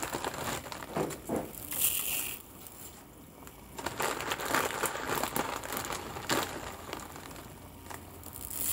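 Dry fideo noodles being crumbled by hand, crinkling and crunching in irregular bursts.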